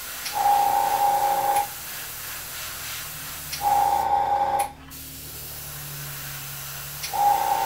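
Gravity-feed makeup airbrush spraying in three short bursts of about a second each, a steady whistling tone as air rushes through it each time the trigger is pressed, with a fainter steady hiss between bursts.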